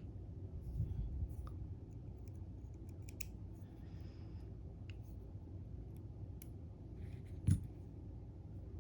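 Small metallic clicks and light taps of brass lock pins and picking tools being handled on a work surface, with one louder knock about seven and a half seconds in.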